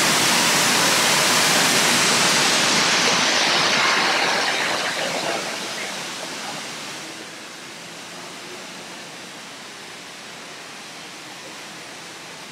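Loud, steady rush of water at a koi pond, like a waterfall or fountain pouring in. It fades after about five seconds to a quieter steady hiss.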